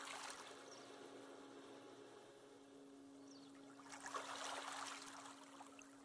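Quiet fading tail of background music: one held note lingers softly, with two gentle swells of rushing noise, one at the start and one about four seconds in.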